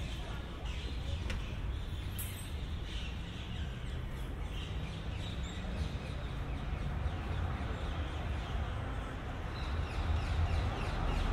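City street ambience: a steady low rumble of traffic under an even wash of noise, swelling about ten seconds in as a vehicle draws near.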